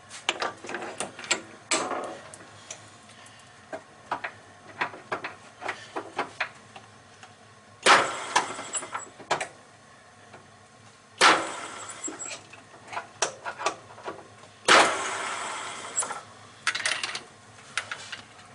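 Metal clicks and knocks of a lathe being set up for knurling: a knurling tool mounted on the tool post and the cross slide moved, with three louder clunks about 8, 11 and 15 seconds in.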